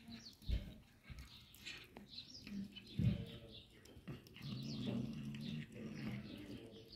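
Cats chewing and smacking on slices of salami: irregular wet clicks and smacks, with a louder knock about three seconds in. A low, drawn-out pitched sound lasts about a second past the middle.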